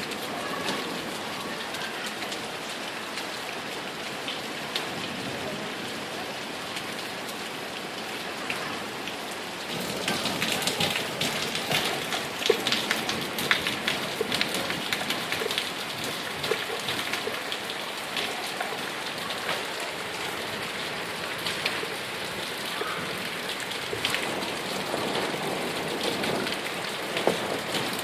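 Heavy rain falling in a downpour, drops striking hard surfaces in many sharp ticks; the rain gets heavier about ten seconds in.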